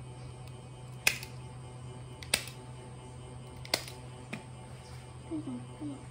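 Handheld office stapler snapping shut three times, each a sharp click a second or so apart, then a fainter fourth click, as staples are driven through a cloth diaper. A few short wavering voice-like sounds follow near the end.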